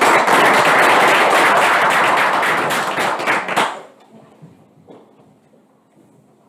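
Small audience applauding, a dense patter of hand claps that fades out after about four seconds.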